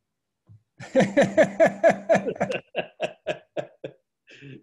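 A man laughing: a run of short 'ha' pulses at about five a second that starts about a second in and trails off over about three seconds.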